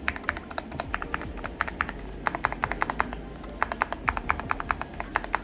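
Keystrokes on a gasket-mounted Yunzii YZ19 numpad with Gateron G Pro 3.0 Yellow linear switches, typed in quick runs of about eight presses a second with short pauses between runs. Background music plays underneath.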